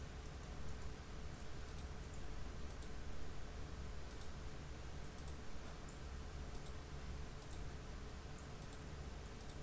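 Computer mouse button clicking faintly, a click or quick double click about once a second, over a steady low room hum.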